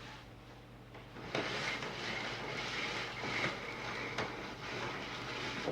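Power cord being pulled out of the vintage Philips P74 vacuum cleaner's cord reel: a steady rushing, rattling noise starting about a second in, with a few sharp clicks.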